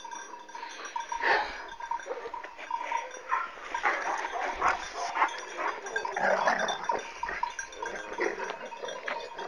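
Kangal shepherd dogs fighting: ragged dog vocalizations in quick, irregular bursts.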